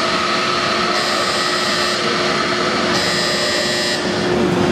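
Aircraft elevator machinery of the helicopter destroyer Hyūga running with a steady hum and whine. A high-pitched tone comes on for about a second every two seconds over it.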